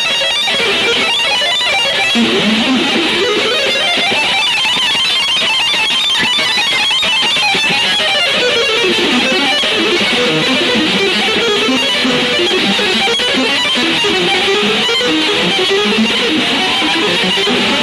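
Electric guitar playing an instrumental passage of quick runs of notes that climb and fall.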